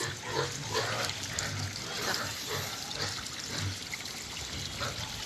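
Water trickling steadily, with faint, scattered voices.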